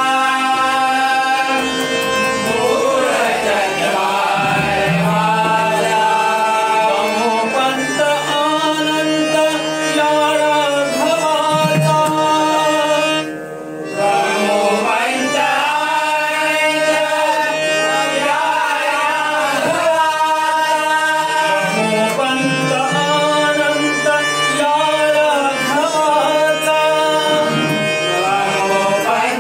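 Malvani bhajan: devotional singing with instrumental and hand-drum accompaniment. The music dips briefly about thirteen seconds in.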